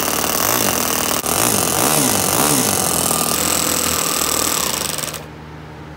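Toyan FS-S100 single-cylinder four-stroke glow (nitro) model engine running fast, its speed swinging up and down several times as the throttle is worked, then holding steady. It is a freshly built engine still to be run in. The engine sound drops away abruptly about five seconds in, leaving a quieter steady hum.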